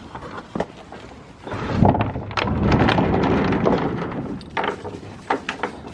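Scattered sharp knocks and clatter. A loud rumble of handling noise on the microphone comes in about a second and a half in and lasts about three seconds.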